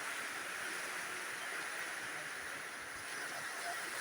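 Heavy rain falling in strong wind: a steady hiss.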